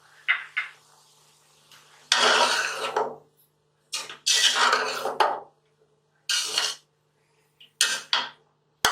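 A spoon stirring and scraping vegetables and chicken around a cooking pot in four separate strokes, with a couple of short clinks near the start and a sharp click near the end.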